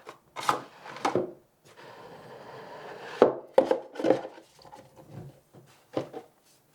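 Cardboard watch packaging being handled and opened: scattered knocks and taps, and about a second and a half of soft rubbing as cardboard slides against cardboard.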